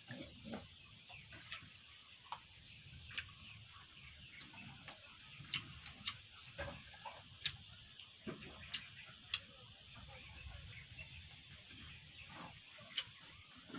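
Faint eating sounds from close up: chewing, with sharp wet mouth clicks and smacks at irregular intervals while grilled chicken is being eaten.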